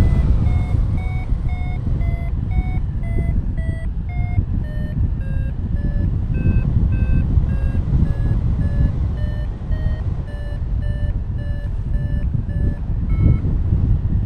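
Paragliding variometer beeping about twice a second, its pitch dipping and then slowly rising; a vario beeps like this in rising air. It stops shortly before the end, over steady wind rush on the microphone.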